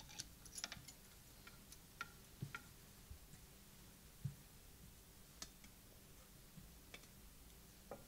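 Near silence with scattered faint clicks and light knocks, a small cluster at the start and single ones every second or two, as a small wooden wall tabernacle is opened and the communion vessels are handled.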